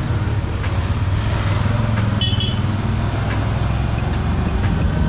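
Road traffic passing close by with a steady engine rumble, and a short high beep about two seconds in.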